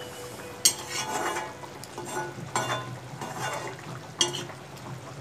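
Metal spatula stirring chicken curry in an iron kadai, scraping and knocking against the pan several times, with the sharpest knock under a second in.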